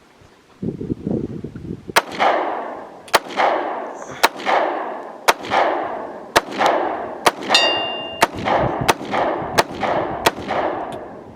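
.45 handgun firing about ten shots, roughly one a second, each with a rolling echo. A short metallic ring from a hit steel target comes about two-thirds of the way through.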